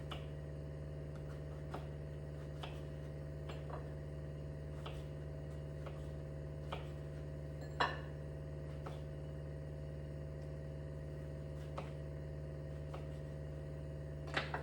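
Kitchen knife slicing shiitake mushrooms on a cutting board: faint, light taps roughly once a second, a slightly louder one about eight seconds in, over a steady low hum.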